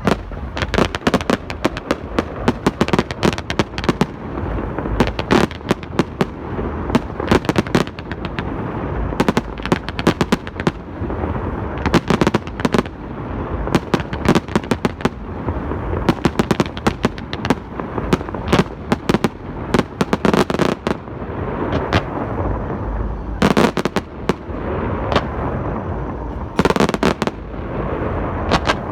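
Fireworks going off in a dense, continuous barrage: many sharp bangs and cracks in quick succession, overlapping over a constant low rumble, with a few brief lulls between louder clusters.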